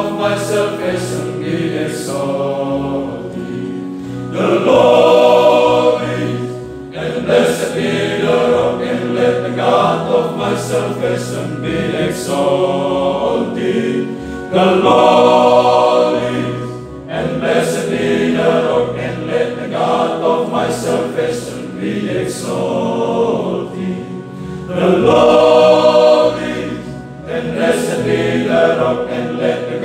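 A male choir of religious brothers singing a sacred song, swelling louder three times in long phrases.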